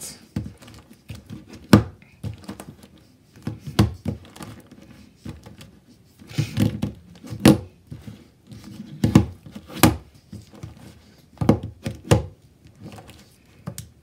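Plastic 3x3 Rubik's cube being turned and tipped over on a wooden tabletop with fingertips: irregular clacks and thunks, some single and some in quick clusters.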